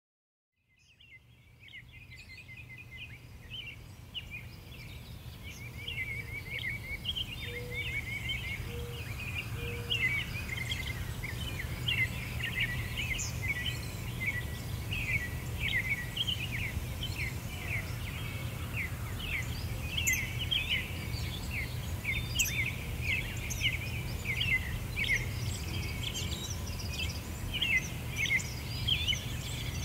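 Many small birds chirping and twittering over a steady low rumble, fading in from silence over the first few seconds.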